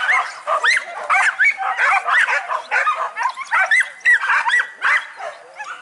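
A pack of leashed hunting dogs barking and yelping all at once, many short overlapping barks and high yips with no pause.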